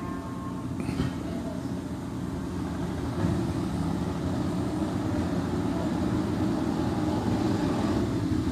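Steady low rumble of background noise, growing a little louder about three seconds in, with a faint click about a second in.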